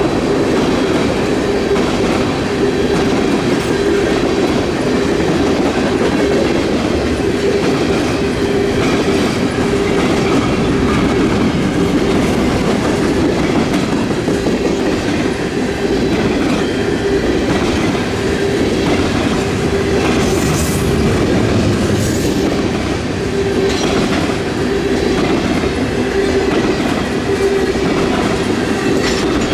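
A manifest freight train's cars rolling past on the rails: a loud, steady rumble and clatter of wheels with a thin steady tone underneath. A few brief sharp clicks come about two-thirds of the way through.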